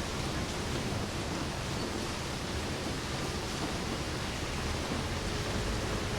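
Steady rain, an even hiss with no distinct drops standing out.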